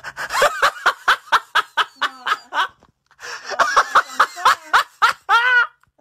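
A person laughing hard in rapid, high-pitched ha-ha bursts, about four or five a second, in two long runs with a short break for breath about three seconds in.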